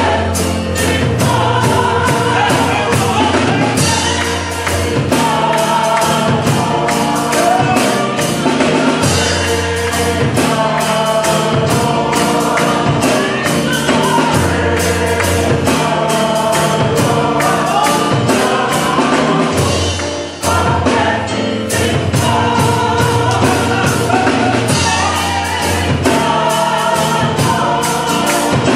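Church gospel choir singing with instrumental accompaniment: a steady beat and a strong bass line under the voices.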